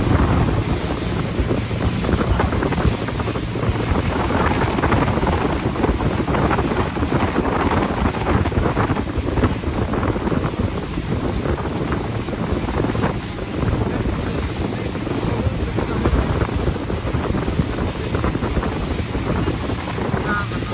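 Wind buffeting the microphone on a moving tour boat, over the steady rumble of the boat and the wash of sea water.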